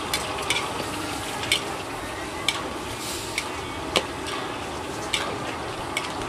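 Stir-frying in a large metal wok: a metal spatula and ladle scrape and clank against the pan about eight times at irregular intervals, the loudest clank about four seconds in, over a steady sizzle.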